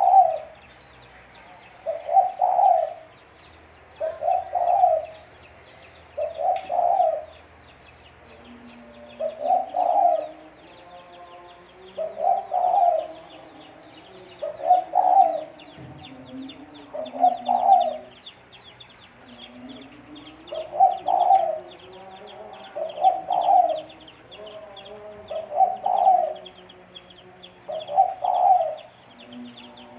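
Spotted dove (tekukur) cooing over and over, one call about every two to two and a half seconds, each call a short run of two or three coos.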